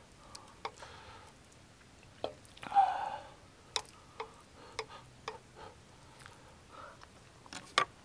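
Eating sounds: small sharp clicks of utensils against a dish at irregular intervals, with a louder brief sound about three seconds in and a quick pair of clicks near the end.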